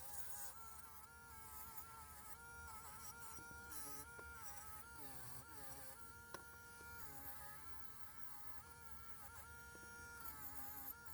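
Small motorised wire brush whining as it scrubs a diecast metal casting. Its pitch sags and recovers again and again as the brush is pressed on and eased off, with a scratchy hiss of bristles on metal.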